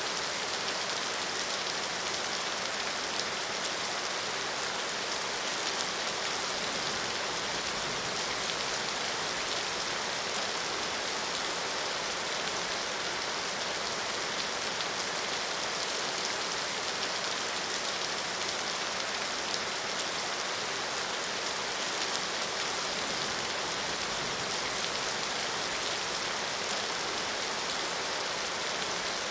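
Steady rain falling, an even hiss of many drops with faint individual patters, holding level without change.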